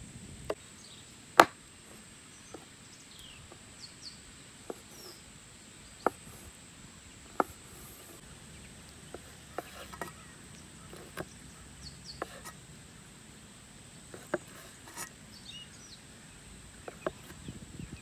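Steel cleaver chopping raw chicken breast on a wooden cutting board: sharp knocks at irregular intervals, about one every second or so, the loudest about a second and a half in. Faint bird chirps over a steady outdoor background.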